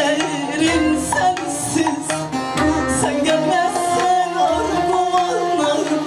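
Woman singing a Turkish folk song (türkü) in long, ornamented held notes, accompanied by bağlama and a hand drum keeping a low beat.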